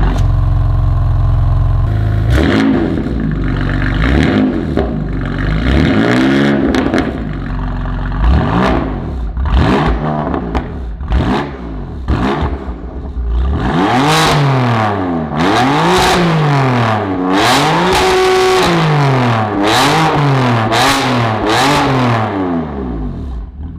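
A 2020 BMW M4 F83's 3.0-litre twin-turbo inline-six, standing still and heard at its quad exhaust tips. It runs steadily at first, then is free-revved again and again, the note rising and falling. In the second half comes a quick run of blips, about one a second, one of them held briefly near the middle, with sharp pops between revs.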